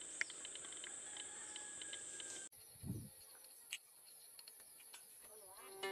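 Faint, steady high-pitched chirring of insects. It breaks off abruptly about two and a half seconds in and carries on at a slightly higher pitch. A soft low thump comes about half a second after the break, then a short click.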